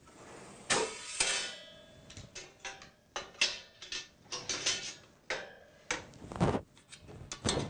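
Cookware clattering on a pull-out wire basket in a low kitchen cabinet as the basket is pulled out and a pot and its lid are handled. It is a string of separate metallic knocks and rattles, some ringing briefly.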